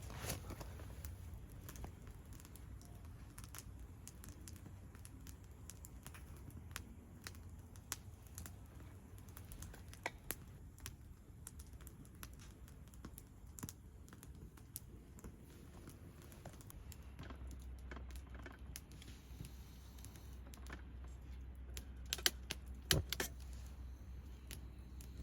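Scattered light clicks and taps, irregular and a few louder ones near the end, over a low steady rumble.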